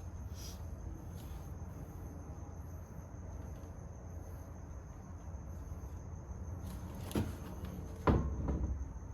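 Steady low hum with a faint high, even tone over it, then a couple of clicks and a short burst of knocking and clatter about eight seconds in.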